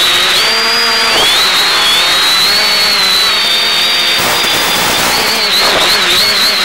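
X550 quadcopter's brushless motors and propellers whining in flight, several high tones wavering up and down together as the motor speeds change with throttle, wobbling quickly for a moment near the end.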